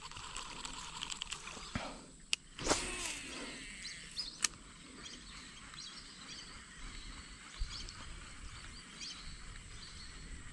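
Outdoor waterside ambience: a steady high-pitched hiss with faint scattered bird calls. A few sharp clicks come about two and four and a half seconds in, and a brief louder noise comes about three seconds in.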